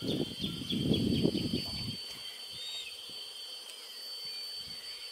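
Outdoor ambience: a steady high insect drone with a few short bird chirps. In the first two seconds there is a dense low rumbling noise that then dies away.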